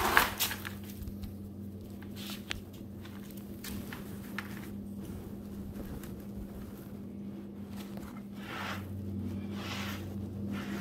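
Crushed lump charcoal shaken out of a cloth bag into a plastic bucket: scattered small clicks of falling pieces and rustling of the fabric, over a steady low hum.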